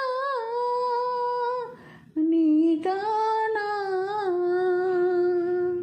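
A woman singing the song's final phrase as two long held notes without words, with a brief break about two seconds in. The second note wavers up and down, then settles and stops abruptly at the end.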